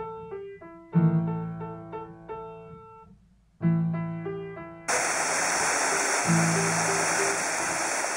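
Gentle piano-like keyboard music; about five seconds in, the steady rush of a waterfall cuts in suddenly and continues loudly over the music.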